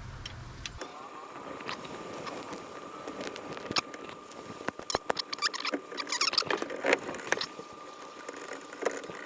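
Scattered light clicks and rattles of small parts being handled at a steering column during disassembly, with a faint steady high tone underneath.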